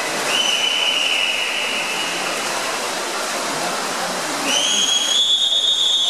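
Long, steady high whistles over a continuous noisy din. One starts just after the beginning and fades after about two seconds. Another rises in about four and a half seconds in and holds.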